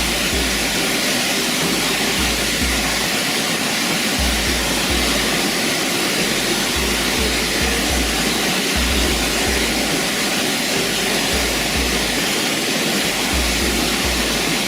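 Steady, loud rush of a waterfall, with music and a low bass line playing underneath.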